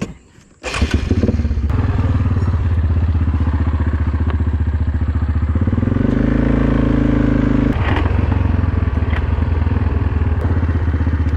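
Four-wheeler (quad) engine running under way, starting suddenly about a second in; the engine note climbs higher around six seconds in and drops back near eight seconds.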